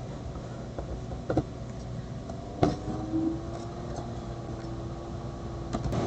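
Steady low hum and hiss with a few soft clicks, the loudest about two and a half seconds in, after which a faint steady low tone sets in.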